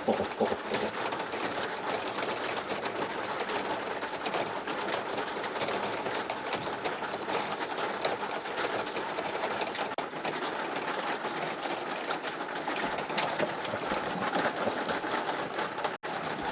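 Heavy rain pouring down steadily, a dense, even patter.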